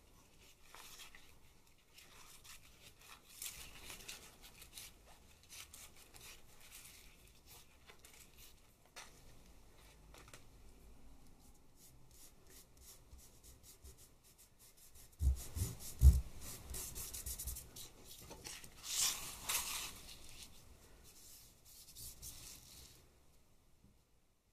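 Thin plastic sheet being peeled off a card print and handled over it, giving a light rustling and rubbing. About two-thirds of the way through there are two dull thumps, the loudest sounds, and a louder swish follows a few seconds later.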